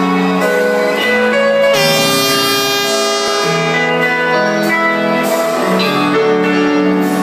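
Live band playing the instrumental introduction to a Greek laïká song: a melody of long held notes over a steady bass line, loud and without singing.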